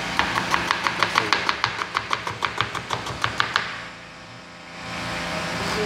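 Knife finely chopping onion in quick, even strokes, about six a second, which stop a little past halfway.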